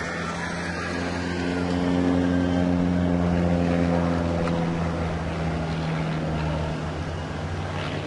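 Single-engine propeller aircraft's engine running steadily during aerobatic manoeuvres, growing louder about two seconds in and easing off after about four.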